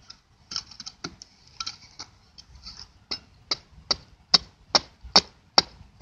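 Axe shaving and chopping the edge of a thin wooden board, whittling it down by hand. Light, irregular scraping cuts at first; from about three seconds in, a steady run of sharp chops a little over two a second, growing louder.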